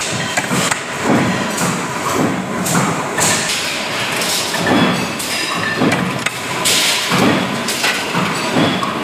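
Press-shop machinery running with a steady noise, broken by repeated thuds and knocks roughly once a second, around a 150-ton sheet-metal punching and bending press.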